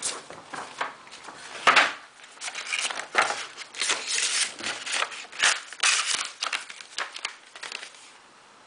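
Packaging being handled and unwrapped as a tablet is taken out of its box: a run of irregular rustles and clicks that stops about eight seconds in.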